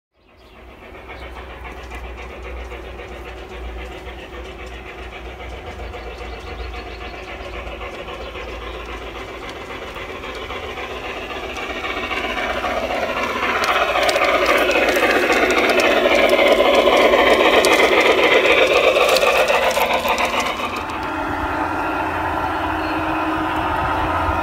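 G-gauge model trains running on garden railway track: a steady mechanical running sound that grows louder about halfway through as a train comes close.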